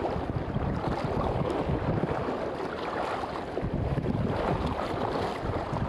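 Steady wind buffeting the microphone, over small waves lapping and splashing in the shallows.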